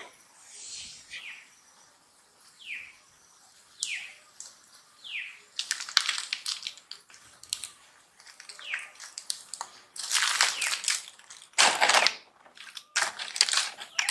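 Leaves and twigs crackling and rustling in clusters as a macaque moves and handles branches in the tree canopy. Loudest near the end. In the first half, short high chirps that fall in pitch repeat about once a second.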